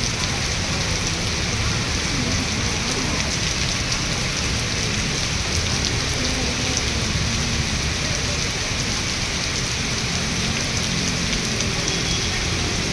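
Heavy rain pouring steadily onto wet pavement, an even, unbroken hiss of downpour.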